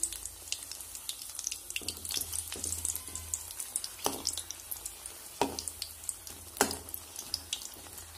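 Battered brinjal (eggplant) fritters frying in hot oil: a steady spatter of small pops and crackles, with three sharper knocks of a utensil against the pan as the fritters are turned over.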